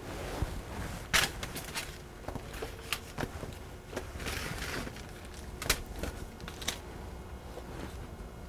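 Hands lifting and laying ropes of bread dough on a parchment-lined sheet pan while braiding: light rustling of the parchment paper with scattered small clicks and taps, irregular and spread through the whole stretch.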